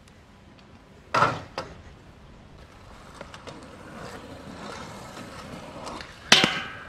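Kick scooter wheels rolling on asphalt, building up as the rider approaches, then a loud clack near the end as the scooter lands on a grind rail, followed by a short metallic ring. A sharp clatter of the scooter hitting the ground about a second in.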